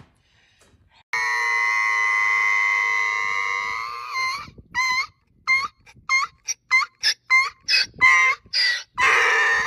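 Donkey braying: one long held note, then a run of short rhythmic hee-haw calls that come faster and louder, ending in a longer call.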